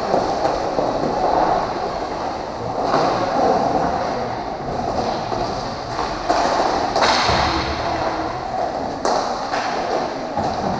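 Roller hockey play in a large hall: a steady rumble of skate wheels and spectator murmur, broken several times by sharp knocks of stick on ball and ball against the boards.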